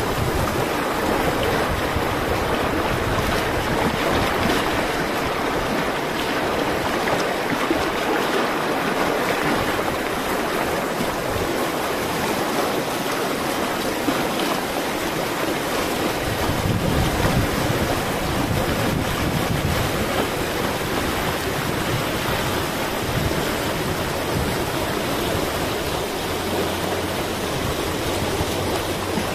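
Fast, muddy river rushing over rocky rapids: a steady, loud wash of churning whitewater.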